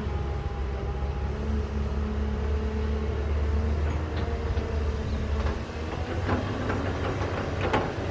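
Caterpillar 312B excavator's diesel engine running with a heavy low rumble that eases off about five and a half seconds in. Several sharp metallic clanks follow near the end.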